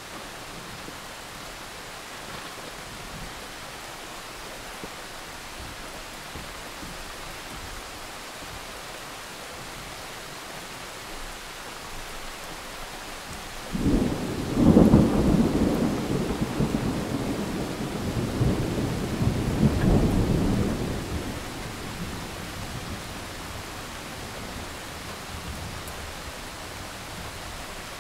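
Thunderstorm: steady rain, with a roll of thunder about halfway through that breaks suddenly, swells twice and rumbles away over some eight seconds.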